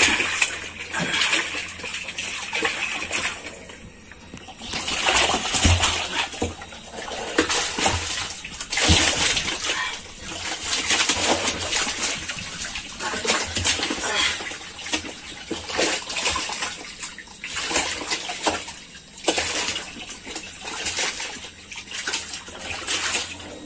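Water splashing and sloshing in irregular bursts inside a plastic drum as a hand gropes through the shallow water for catfish.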